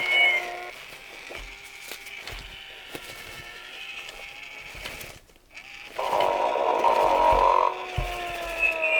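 Tyco Sing & Snore Ernie talking plush playing its snoring routine through its small speaker: a whistling out-breath at the start, a quieter pause with faint clicks, then a long loud snore from about six seconds in, followed by another whistling breath near the end.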